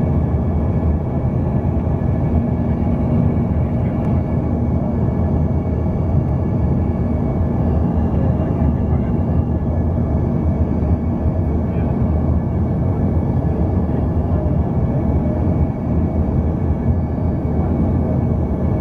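Steady cabin noise inside an Embraer 145 regional jet on final approach: a loud, even rumble from its two rear-mounted turbofans and from air rushing past the airframe, with the flaps extended for landing.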